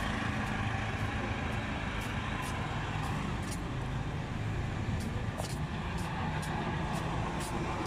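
Road traffic: the steady hum of a CNG auto-rickshaw's small engine and other vehicles on the street, with faint ticks recurring about every half second from about two seconds in.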